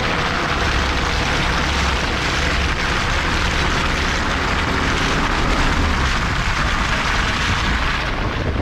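Off-road 4x4 driving along a dirt track: a steady rushing of wind on the microphone over a low engine and tyre rumble.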